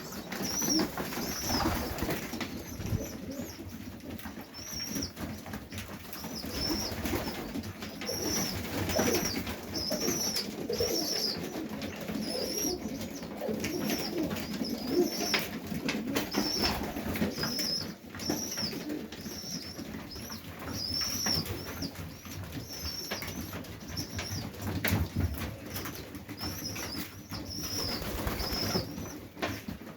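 Domestic pigeons in a loft: low cooing under a steady series of short, high squeaks, one or two a second, with scattered rustles and wing flutters.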